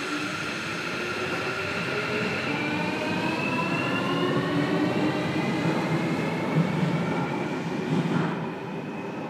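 Toshiba PMSM traction motors and VVVF inverter of a JR Kyushu 305 series electric train, heard from inside the motor car. The whine rises in several parallel tones as the train accelerates, over the rumble of the wheels on the rails. The whine falls away near the end.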